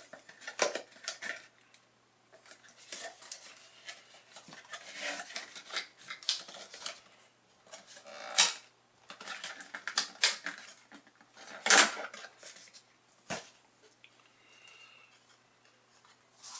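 Cardboard and plastic packaging being handled: rustling, scraping and clicks as the camera in its plastic housing is taken out of the box insert, with two louder sharp clatters about eight and twelve seconds in.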